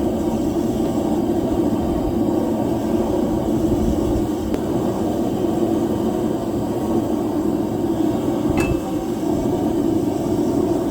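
Blacksmith's forge running with a steady, even rushing noise, with a single sharp click about eight and a half seconds in.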